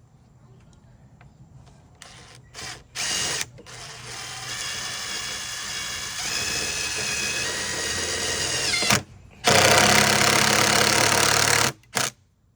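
DeWalt DCF801 12V cordless impact driver driving screws into a wooden 4x4 post: a few short trigger blips, then a steady motor whine lasting several seconds, then a louder, noisier burst of about two seconds, and one last short blip near the end.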